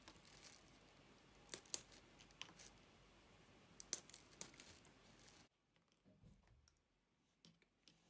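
Walnut kernels broken by hand and dropped into a plastic yogurt cup of banana slices: sharp clicks and crackles in two short clusters. Near the end come faint clicks of a metal spoon in the cup.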